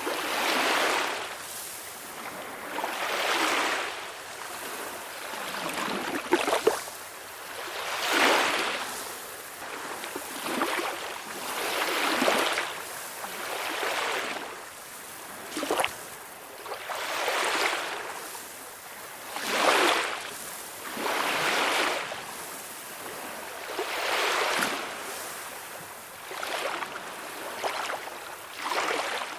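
Calm sea waves washing onto the shore, the surf swelling and falling away every few seconds, with a few short sharp splashes.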